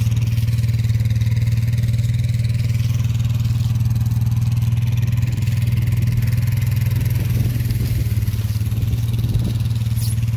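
ATV engine idling steadily, a constant low drone.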